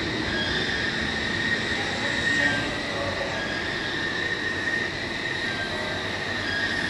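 Heavy machine-tool machinery running steadily: continuous mechanical noise with a high, steady whine.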